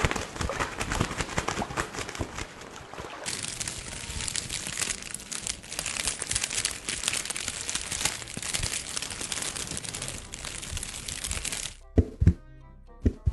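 Dense crinkling and crackling, like material being crumpled, that turns brighter and hissier about three seconds in and cuts off abruptly near the end, followed by a few sharp knocks.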